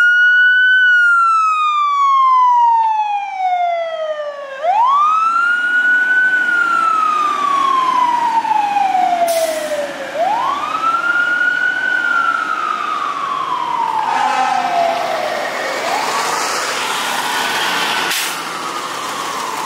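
Fire truck siren on a wail: each cycle climbs quickly over about a second, then slides slowly back down over about four seconds, four times in all. About three-quarters of the way through there is a short burst of rapid pulsing.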